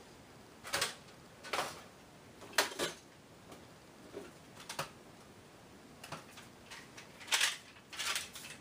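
Plastic toy blasters being handled on a wall rack: about ten short, irregular clacks and knocks as they are moved and lifted off their mounts.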